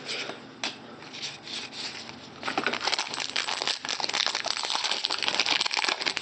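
Foil wrapper of a trading-card pack being torn open and crinkled by hand. Quiet rustling of cards at first, then dense crackling crinkles from about two and a half seconds in.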